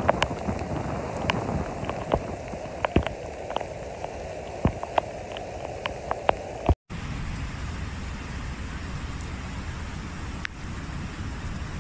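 Heavy rain over rushing floodwater, with frequent sharp ticks of drops in the first half. After a short break about seven seconds in, the sound turns to a steadier, deeper rush of water and rain.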